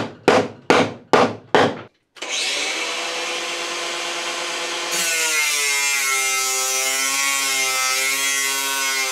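Five short scraping strokes, then an angle grinder spins up and runs steadily. About five seconds in its abrasive disc bites into the metal of a laptop hard drive: a loud grinding hiss rises over the motor's whine, which drops slightly in pitch under the load.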